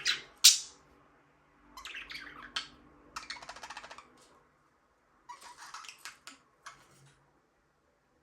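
Budgerigar chirping and chattering in short bursts, with a loud sharp call about half a second in and a rapid clicking trill around three to four seconds in.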